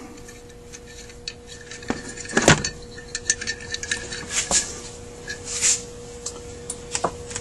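Small clicks, taps and scrapes of metal carburetor parts being handled, with one louder knock about two and a half seconds in, over a faint steady hum.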